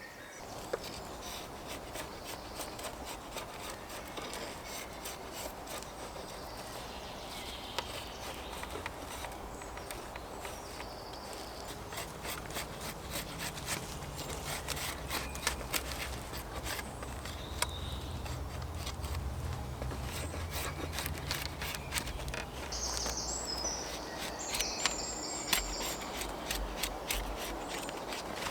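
Scattered clicks, knocks and rubbing of hands-on work with wooden poles, with a low rumble through the middle.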